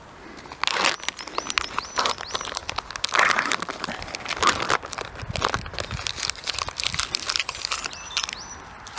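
Plastic Arctic Field Ration pouch crinkling and rustling as it is opened by hand and the wrapped food packets inside are pulled about. The crinkling starts about half a second in and comes in irregular bursts.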